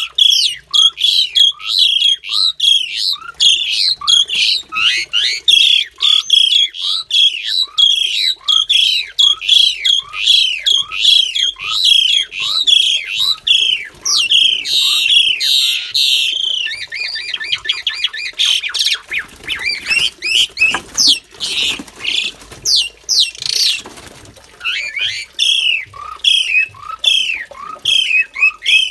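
Javan pied starlings calling harshly over and over, about two sharp downward calls a second. Near the middle the calls turn to a fast chatter and then a few seconds of noisy scuffling and flapping, as the newly paired male and female fight in the cage.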